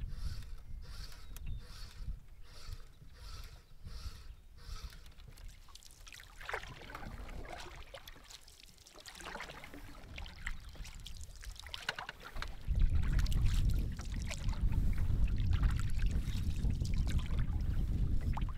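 Canoe paddle strokes in lake water. A regular ticking runs about twice a second for the first few seconds, and about two-thirds of the way through a loud low rumble of wind on the microphone comes in and stays.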